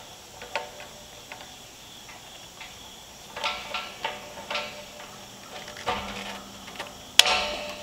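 Steel chain links clinking as bolt cutters are worked onto the chain, a few separate light metallic clicks. Near the end comes one loud, sharp metallic snap with a short ring, as the bolt-cutter jaws bite through a link.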